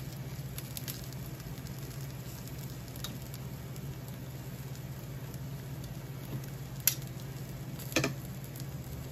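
Yellowtail fish sizzling on an electric grill over a low steady hum, with metal tongs clicking sharply twice near the end as the sticking fish is worked on the wire rack.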